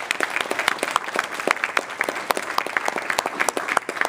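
Audience applauding, with individual hand claps close by standing out from the general clapping.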